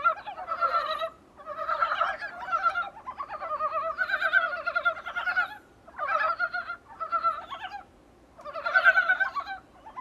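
Dybowski's brown frogs (northern mountain frogs) calling in chorus: rapid, clucking, pulsed calls from several frogs overlapping in bouts, with brief lulls about a second in, near six seconds and around eight seconds.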